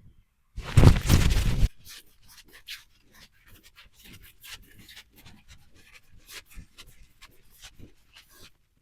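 A loud rustle about a second in, lasting about a second, followed by a run of small scratching and rustling sounds.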